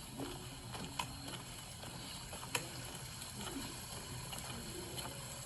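Footsteps and clothing rustle picked up by a shirt-mounted body camera while walking a forest trail, with a low steady hum and two sharp knocks, about a second and two and a half seconds in.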